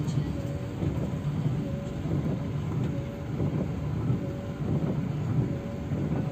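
Steady low rumble of engine and road noise inside the cabin of a double-decker coach driving in the rain. A faint short tone recurs roughly once a second.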